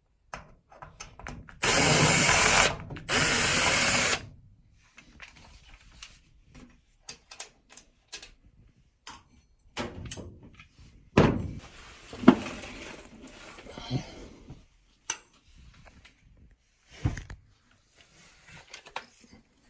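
Cordless drill/driver running in two bursts of about a second each, backing out the two screws that hold a washing machine's water fill valve. Clicks, knocks and rattles of parts being handled follow.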